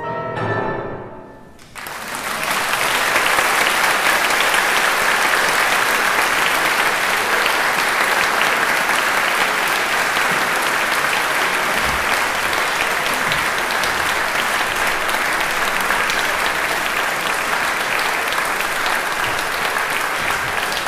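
A grand piano's final chord rings and fades away over the first two seconds. An audience then applauds steadily through the rest.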